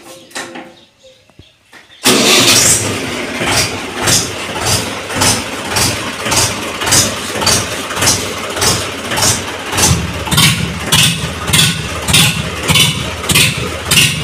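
A Mahindra 475 DI tractor's diesel engine starts suddenly about two seconds in, then keeps running loudly with a regular pulsing about twice a second. The pulsing grows heavier from about ten seconds in.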